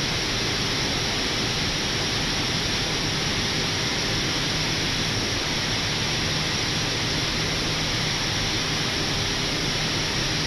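Steady rushing noise on an Airbus airliner's flight deck as it taxis the last few metres onto the stand, engines at idle. There is a faint low hum underneath and no change in level.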